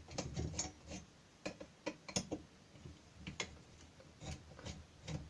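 Scattered small metal clicks and knocks of screws being undone and taken out of the printer frame's aluminium extrusion, with a sharper click about two seconds in.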